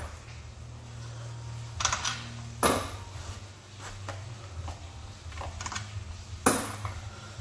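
Scattered sharp metallic clicks and clinks of hand tools and fasteners against a transmission case during disassembly, a handful of separate knocks over a steady low hum.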